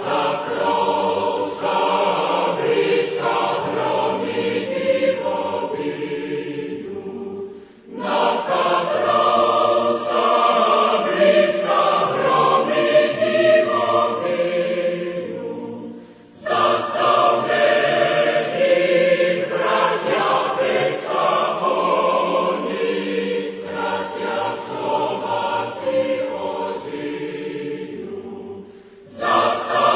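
Choral music: a choir singing in long phrases, each breaking off briefly before the next begins, about eight and sixteen seconds in and again near the end.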